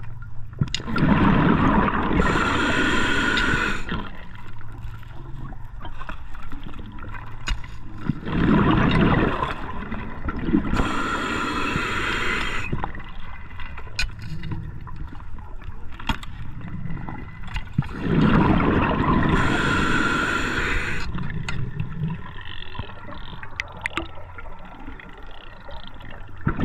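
Scuba diver breathing through a regulator underwater. Three breath cycles about eight seconds apart, each a bubbling, gurgling exhale and a hissing rush of air through the regulator.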